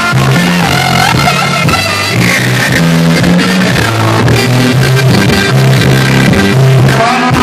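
Cumbia band music: a bass line stepping through held notes under guitar and a higher melody, playing steadily throughout.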